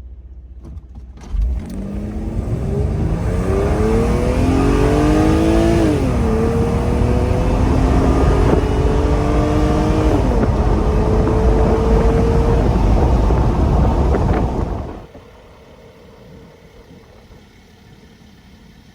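Mercedes W124 300E-24's freshly rebuilt M104 3.0-litre 24-valve straight-six accelerating hard, its note climbing in pitch, dropping sharply twice (about 6 and 10 seconds in) as it shifts up, then climbing again. About 15 seconds in the throttle closes and the engine falls back to a much quieter cruise.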